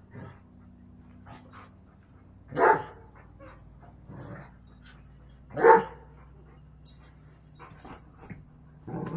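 Dogs at play: one dog gives two short barks about three seconds apart, with fainter snuffling and yips between them.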